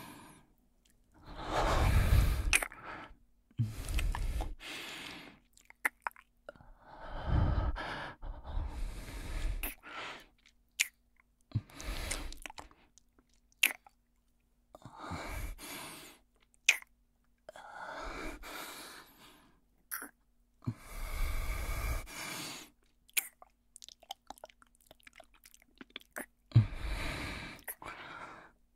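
Close-miked kissing: wet lip smacks and mouth clicks mixed with heavy breaths, coming in bursts of a second or two separated by short pauses.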